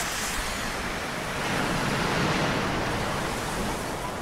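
Ocean surf breaking and washing onto a beach: a steady rushing wash that swells about halfway through.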